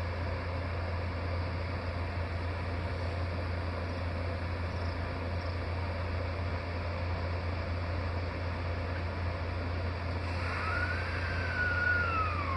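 Steady running noise of a vehicle with a constant low hum; near the end a single pitched tone glides up and then falls away over about two seconds.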